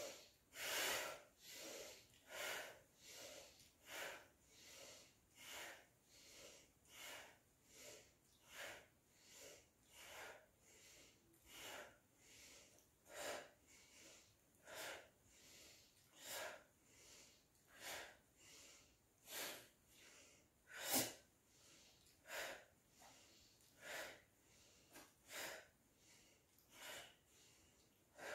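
Faint, forceful rhythmic yoga breathing: short sharp exhalations repeating about four times every three seconds, with one stronger puff about 21 seconds in.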